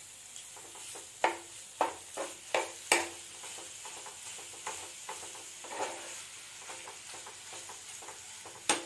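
Minced chicken sizzling in a frying pan as it is stirred into the masala, with a cooking utensil knocking and scraping against the pan several times in the first few seconds and now and then after.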